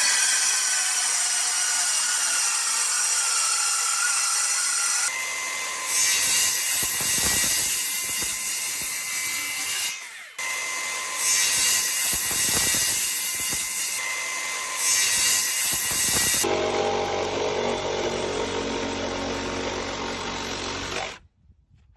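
Circular saw running with a steady high whine and cutting through material, the sound swelling louder as the blade bites, about three times. It is heard in several spliced clips, with a short break partway through and a change of sound about two-thirds of the way in, and it stops shortly before the end.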